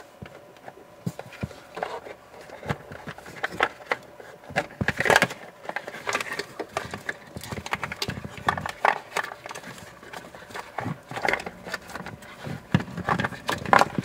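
Irregular plastic clicks, knocks and scraping as a heater blower motor and its plastic cover are worked up into the blower housing under a dashboard, with louder knocks about five seconds in and near the end.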